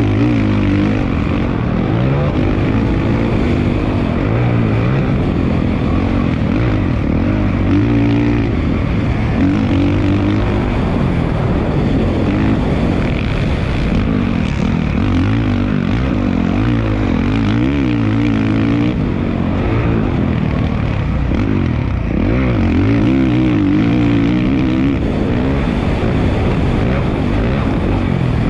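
Dirt bike engine running hard on a motocross track, its pitch rising and falling over and over as it revs out and shifts.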